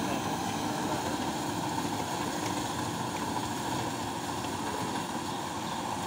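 Rice combine harvester running steadily as it cuts and threshes the crop: a continuous, even mechanical drone of engine and machinery.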